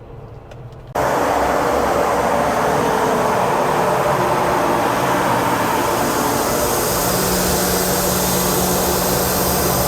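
Sukup grain dryer running: its drying fan and burner make a loud, steady rushing hum that comes in suddenly about a second in. A low steady tone joins about seven seconds in.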